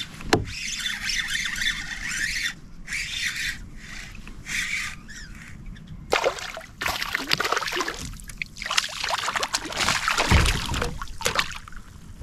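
Water splashing and sloshing in irregular bursts, heavier and more continuous from about halfway through.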